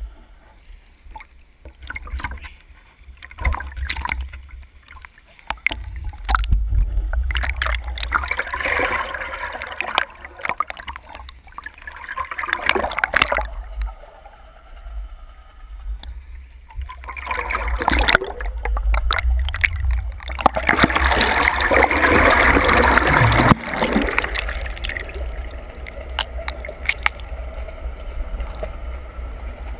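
Water rushing and bubbling past a GoPro in its waterproof housing on a scuba board moving through lake water, over a steady low rumble. Two long stretches of louder rushing come about a third of the way in and again past the middle.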